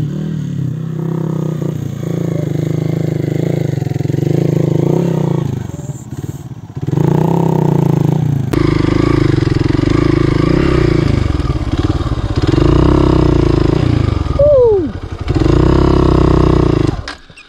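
Hero Xpulse 200 single-cylinder motorcycle engine running off-road under throttle. Its revs rise and fall several times, with a brief drop around the middle.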